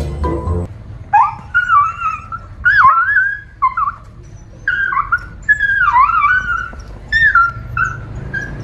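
A frightened dog whimpering and yelping: a string of short, high cries that rise and fall in pitch, starting about a second in. Brief background music cuts off just before.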